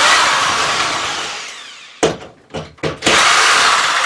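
Cordless drill run in two loud bursts, one at the start and one about three seconds in, each cutting in suddenly and fading away over about two seconds, with a few short clicks between them.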